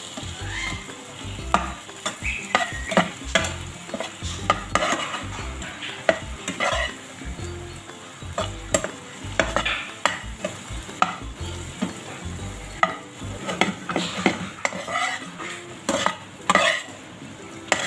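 A slotted spatula stirring chicken pieces through cream in a non-stick frying pan, with many irregular scrapes and knocks against the pan. The cream sizzles underneath.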